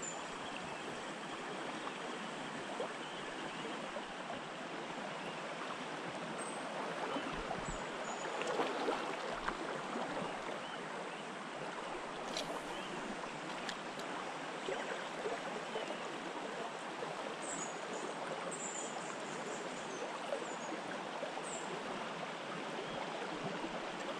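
River water rushing steadily over a shallow stony bed, with a few short high chirps scattered through it.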